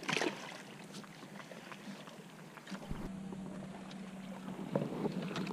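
A small bluegill tossed back over the side of a boat lands in the water with a short splash just after the start. Then there is steady wind and water noise with a few small knocks.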